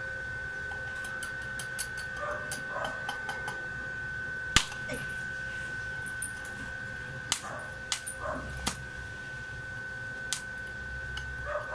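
Stick-welding attempts with a welding rod: scattered sharp ticks and crackles as the rod is struck to start an arc, with one louder snap about four and a half seconds in, over a steady high tone.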